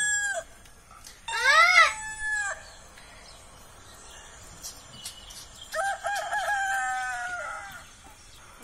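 Rooster crowing twice: a loud crow about a second in that rises and falls in pitch, and a second crow about six seconds in that wavers at first and then holds a long, slowly falling note. The crows are a phone's recording of a rooster and a live domestic rooster answering it.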